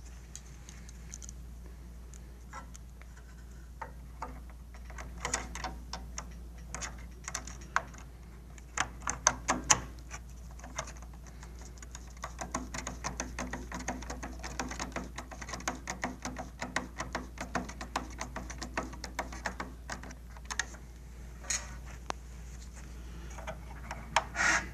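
Irregular small clicks and taps of hand work on plastic and metal parts, coming thicker in the middle: a small solar panel being fitted onto an infrared barrier tower and its mounting screws set. A steady low hum runs underneath.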